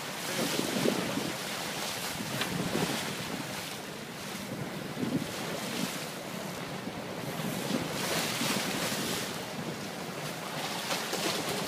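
Wind buffeting the microphone over sea water churning and splashing around the stern of a sportfishing boat, in uneven gusts.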